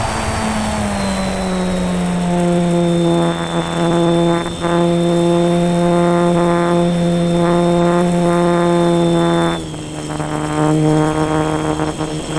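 Electric motor and propeller of a foam RC model plane heard from on board, a steady pitched drone with a thin high whine above it. The pitch falls and settles in the first second, then drops a step lower near the end as the throttle is eased.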